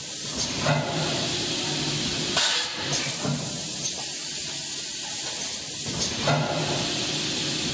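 Automatic multi-lane vertical packing machine running with a steady hum and hiss. Three louder bursts of air hiss come from its pneumatic cylinders as they cycle: about half a second in, about two and a half seconds in, and about six seconds in.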